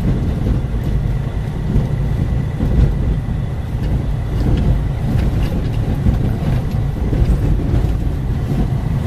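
Steady engine and road rumble heard from inside the cabin of a moving 4x4 truck.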